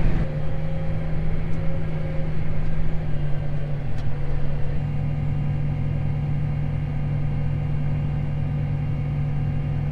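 John Deere 8330 tractor's diesel engine running at a steady speed, a constant low drone.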